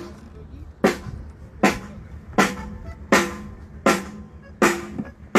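Snare drum hit alone at a steady pace, about one hit every three-quarters of a second, seven times, each hit ringing on briefly. This is a drummer checking the snare at a band soundcheck.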